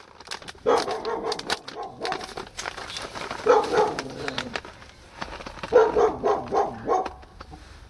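A dog barking in three runs of several short barks: about a second in, around three and a half seconds in, and around six seconds in. Between them comes the crinkle of a plastic bag of grated cheese being handled.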